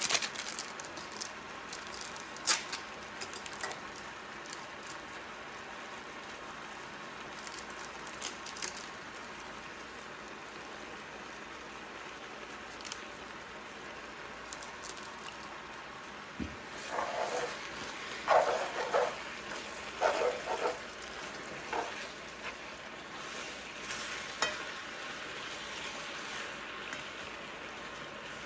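Shrimp, cabbage and noodle stir fry sizzling steadily in the pan, with scattered clicks and a spell of louder scraping and knocking from stirring about two-thirds of the way through.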